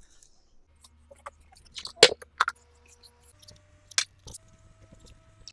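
A few sharp knocks and clicks of small objects being picked up and set down on a granite kitchen counter while it is wiped clean, the two loudest about two and four seconds in.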